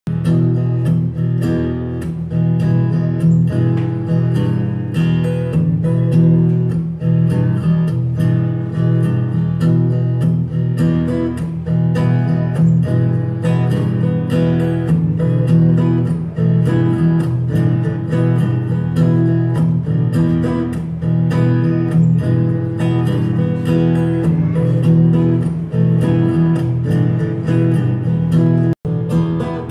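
Acoustic guitar strummed steadily in a regular rhythm. The sound cuts out for an instant near the end.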